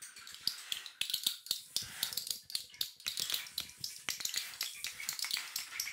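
Irregular rattling and clicking, several sharp ticks a second.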